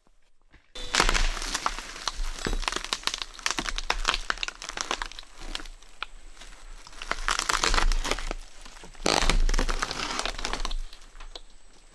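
Rotted roof plywood, with its underlayment and asphalt shingles still on it, being pried and torn up off the rafters: a dense run of cracking, splintering and crinkling. It starts abruptly about a second in and comes in several loud surges.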